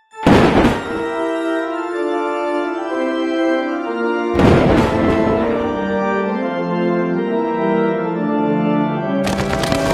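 Dramatic organ music playing held chords, broken by a loud crash at the start, another about four seconds in and a third near the end.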